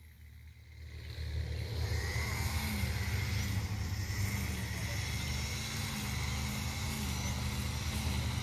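Gas string trimmer (weed wacker) running steadily, a low engine drone that fades in over the first second.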